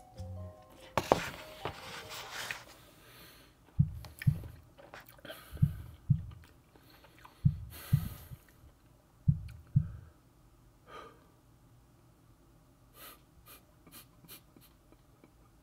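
A person slurping noodles: a long noisy slurp about a second in and shorter ones later. Through the middle come four pairs of deep thumps spaced like a slow heartbeat, followed by a few faint clicks.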